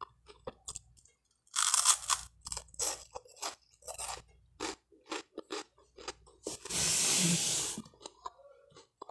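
Close-up crunching and chewing of buttered toast made from a French bread roll, a run of short crisp crackles. A louder, longer rushing noise comes about seven seconds in.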